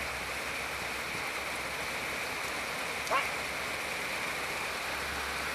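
Steady hiss of rain falling, with one brief rising sound about three seconds in.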